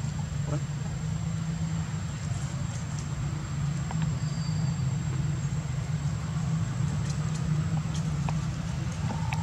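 A steady low mechanical hum, like a motor running, with a faint steady high tone and a few light clicks.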